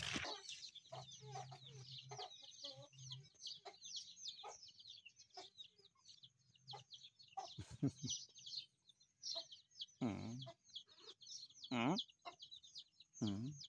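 Chickens clucking faintly, a few louder calls rising and falling, over a steady run of high, quick chirping.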